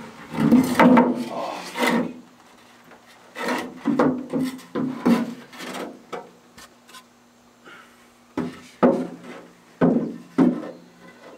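Irregular scraping, rubbing and knocking of metal parts being shifted and tried in place by hand around an autopilot drive's mounting plate, in bunches with short pauses between. A steady low hum runs underneath.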